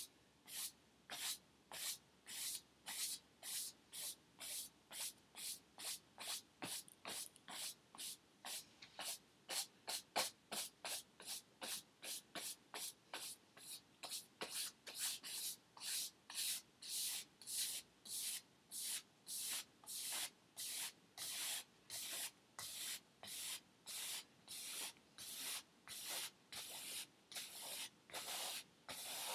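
Paintbrush scrubbing back and forth across a stretched canvas, each stroke a short dry hiss, in a steady run of about two or three strokes a second.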